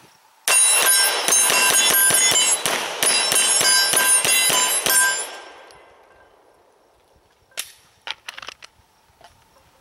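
Smith & Wesson M&P 9mm pistol fired as a rapid mag dump: sixteen shots in a fast, even string lasting about four and a half seconds, with a metallic ringing carried through it. A few sharp clicks follow near the end.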